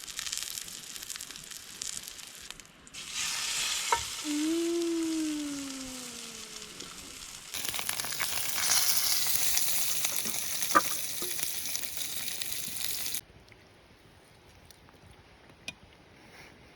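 Food frying and sizzling in a pan with a steady hiss, in a few separate stretches. The sizzle cuts off suddenly about three quarters of the way through, leaving quiet background.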